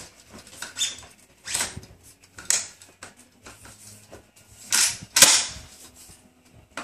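Metal parts of a Weatherby PA-459 pump-action 12-gauge shotgun being worked by hand: several short sliding clacks, the loudest two close together about five seconds in. The action lever and slide are being pulled back and forward while the barrel is being fitted.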